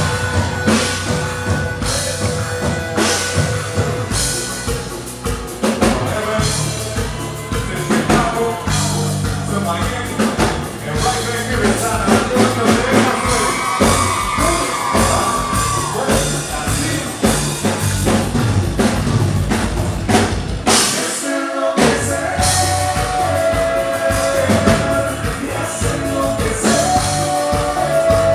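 Live Tejano band playing loudly, with drum kit and a lead voice singing. The band breaks off for a moment about three-quarters of the way through, then comes straight back in.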